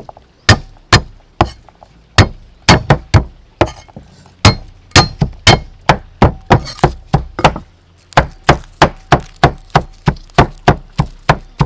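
Cleaver striking a thick wooden chopping block while working garlic cloves, a steady run of sharp knocks about two to three a second. There are brief pauses near the start and about two-thirds of the way in, and the strokes come a little faster after the second pause.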